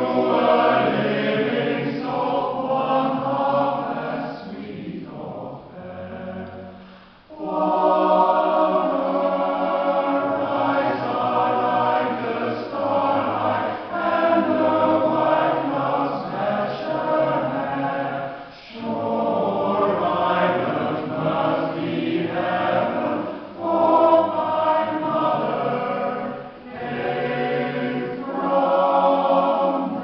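Mixed choir of men and women singing in harmony. The singing thins and drops away between about four and seven seconds in, then comes back in full.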